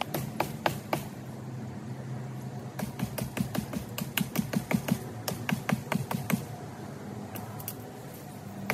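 Skachet blade chopping into a green branch: quick runs of sharp wooden strikes, several a second, with a lull of about two seconds after the first few blows and another near the end.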